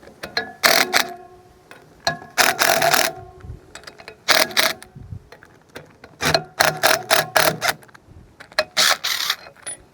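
Ratchet wrench clicking in short spells of rapid strokes with a little metallic ringing, backing out the caging bolts that hold the parking brake's springs compressed.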